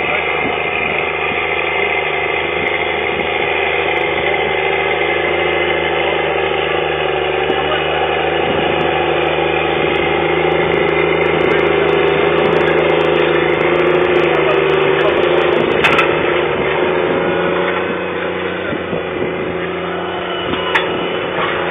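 Caterpillar Challenger rubber-tracked tractor's diesel engine running steadily under load while pulling a press cultivator. It grows louder as the tractor draws near, peaks about two-thirds through, then eases off as it moves away. A scatter of sharp clicks comes near the middle.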